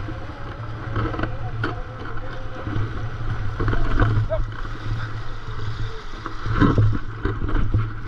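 Paddle strokes splashing beside a stand-up paddleboard and water rushing along the board's hull as it glides, with irregular splashes over a steady wash of water noise.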